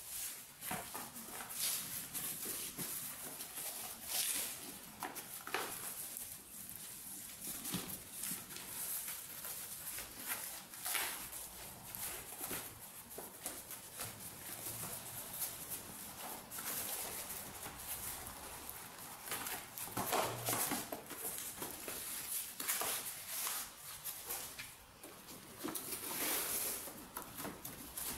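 Corrugated cardboard handled by hand: sheets folded, creased and slid over a tiled floor, with irregular scraping, rustling and light knocks, and a few louder handling noises about a third of the way in and near the end.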